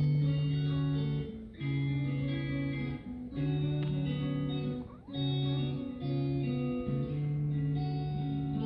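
Background music: a plucked guitar playing phrases about a second and a half long, separated by short breaks.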